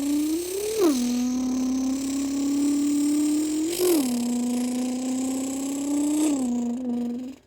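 A person's voice imitating a Nissan GT-R accelerating away: a buzzing engine-like drone whose pitch creeps up and then drops sharply, like gear shifts, three times, before cutting off near the end.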